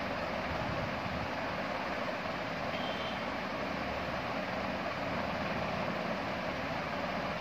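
Steady rushing background noise with no speech.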